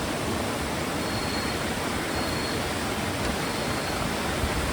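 Steady rush of flowing river water. Faint, short high chirps sound about once a second.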